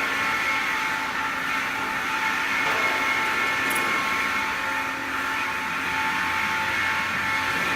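Cosen semi-automatic miter bandsaw and its material-handling system running, a steady machine whine of several held tones over mechanical noise.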